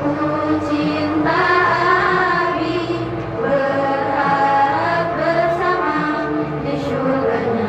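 Choir singing a song, with voices holding and moving between sustained notes.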